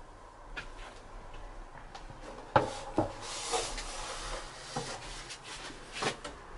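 Glazed ceramic mugs being picked up from a wooden table and handled: a few sharp knocks of pottery on wood, the loudest about two and a half seconds in and another about three seconds in, with rubbing and shuffling between.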